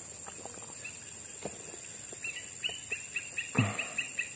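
A small wild creature, a bird or an insect, calling in a rapid run of short, falling chirps, about five a second, from about halfway in. Faint ticks come before it, and a brief louder low sound comes near the end.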